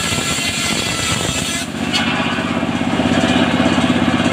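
Engine-driven circular saw bench running under load as a sengon plank is ripped along the blade, the engine's drone mixed with the blade's cutting noise. From about two seconds in the drone becomes an even, rapid pulsing.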